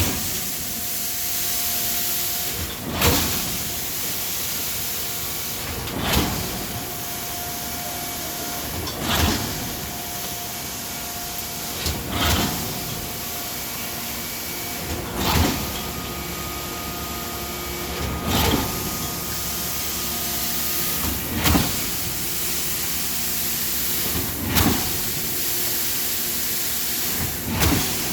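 Concrete pump pushing concrete through a distributor pipeline: a sharp thump about every three seconds as each pumping stroke changes over, over a steady hiss.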